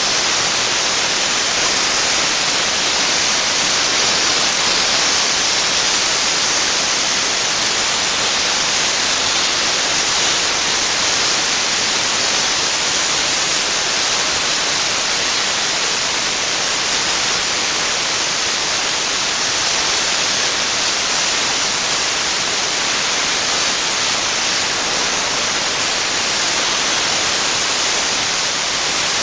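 Dry ice blasting nozzle hissing steadily and loudly as its compressed-air jet blasts dry ice pellets over a car's engine bay.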